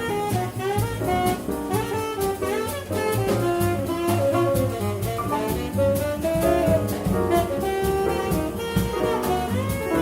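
Live jazz quintet: saxophone playing a quick, moving melodic line over piano, bass and drum kit, with steady cymbal strokes keeping time.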